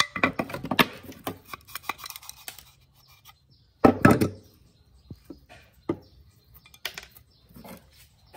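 Rusty metal hoverboard frame halves worked apart at the central axle tube: a run of scraping and rattling clicks, then a louder clunk about four seconds in as the halves come apart. A few scattered knocks follow as the parts are handled on the table.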